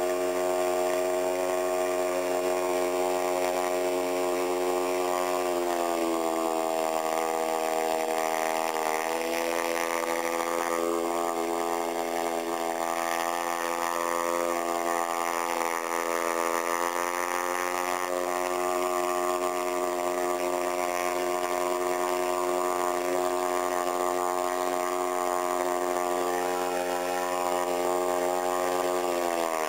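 Small 1 hp outboard motor running steadily as it pushes a canoe across the water. Its engine note drops a little about five seconds in and falls again at the very end.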